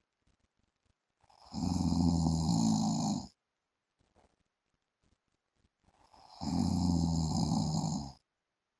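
A man snoring in his sleep: two long snores about five seconds apart, each lasting about two seconds, with near silence between them.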